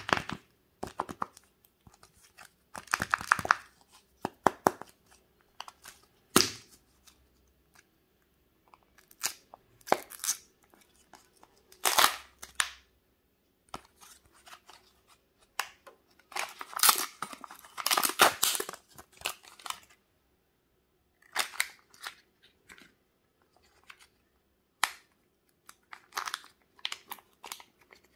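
Thin plastic wrapper and film seal of a Kinder Joy-style chocolate egg pack being peeled and torn open by hand, in short crinkling, tearing bursts with pauses between them.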